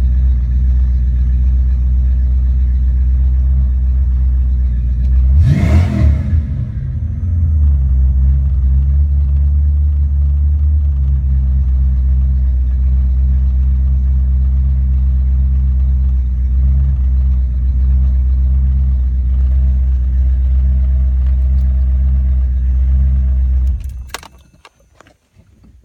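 1993 Ford Mustang Cobra's 5.0L V8 running at a steady idle, blipped once about six seconds in, then switched off near the end, followed by a few faint clicks.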